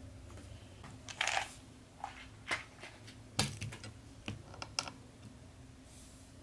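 Hands handling small fishing tackle on a tabletop: a brief rustle, then a string of sharp, separate clicks and taps, like small hard pieces such as lead split-shot sinkers being picked up and knocked together.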